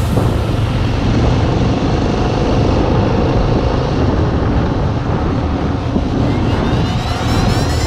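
Yamaha XT600's single-cylinder four-stroke engine running steadily under way, mixed with wind rush on the camera. Near the end a sweep of rising high tones sets in.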